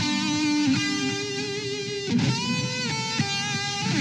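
Instrumental music led by guitar, playing held notes, with a note sliding up about halfway through.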